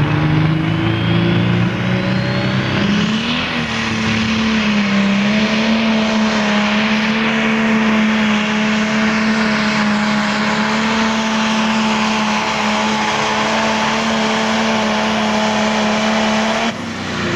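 Turbocharged diesel engine of a super stock/pro stock pulling tractor at full throttle dragging a weight-transfer sled. Its pitch climbs over the first few seconds along with a rising whistle, then it holds a steady high-revving drone. The sound drops off suddenly near the end.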